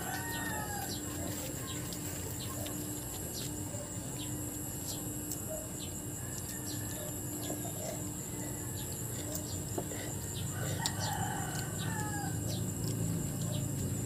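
Rooster crowing twice, once at the start and again about ten seconds in, with short high bird chirps between.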